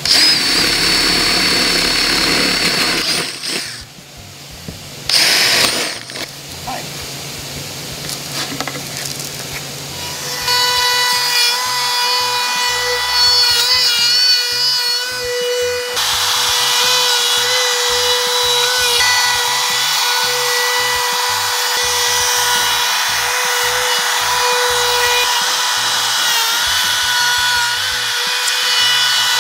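A cordless drill runs in short bursts, drilling starter holes through plywood. From about ten seconds in, a compact trim router runs at high speed, cutting vent slots out of the plywood sheet: a steady high whine whose pitch wavers as the bit takes load.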